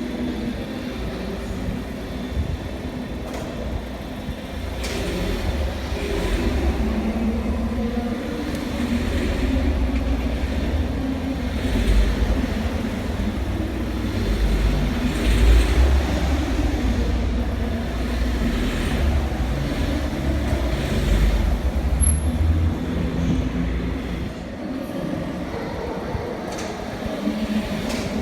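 Skoda Octavia A7 1.2 TSI turbocharged four-cylinder petrol engine running, its drone swelling and easing with the throttle, with a number of short sharp knocks through it. The owner likens the knock to valve knock or knocking piston pins; it comes on when the accelerator is pressed and did not go away with 98-octane fuel or a new clutch.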